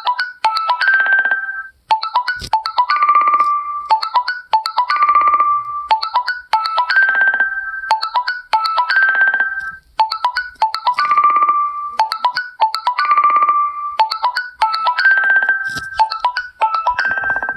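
Ringtone from an Onn device playing a looping melody of short, quickly decaying notes. Each phrase ends on a held note and repeats about every two seconds, and the tone cuts off at the very end.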